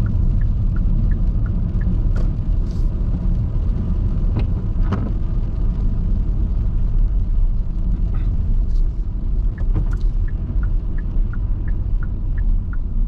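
Steady low rumble of a car driving on a wet highway in the rain, heard from inside the cabin. Light, evenly spaced ticking comes in for stretches, once near the start and again in the last few seconds.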